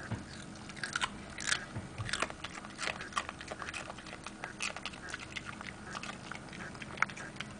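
A small dog chewing a piece of raw cucumber: a quick, irregular run of crisp crunches.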